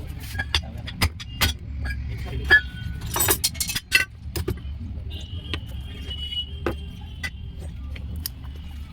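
Mahindra Bolero Neo's diesel engine running with a steady low rumble, with irregular sharp clicks and rattles over it and a faint high whine from about halfway. This is the bad noise blamed on a faulty alternator.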